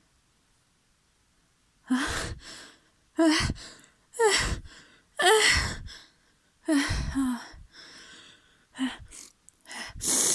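A person's sneezing fit: a run of about seven gasping, sneezing bursts in quick succession, roughly one a second, starting about two seconds in.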